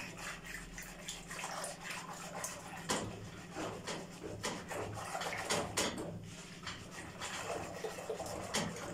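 A small whisk beating warm milk with yogurt starter stirred in, in a bowl: quick, irregular clicks of the whisk against the bowl and the milk sloshing.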